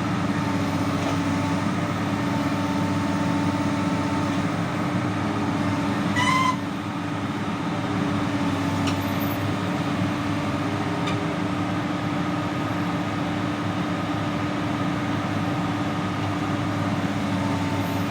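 Komatsu PC200 excavator's diesel engine running steadily under work. About six seconds in, a brief high-pitched tone sounds, and the engine note drops a little afterwards.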